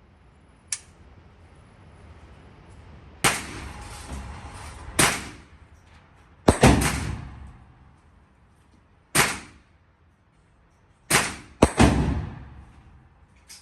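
Gunshots at a shooting range: about seven sharp reports at uneven intervals, some in quick pairs, each trailing off in an echoing tail.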